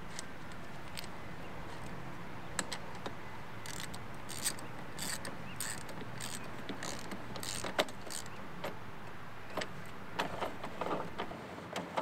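Socket wrench and axle nut clicking and clinking in short, irregular bursts as the nut is tightened onto a lawnmower's front drive-wheel axle, over a faint steady hum.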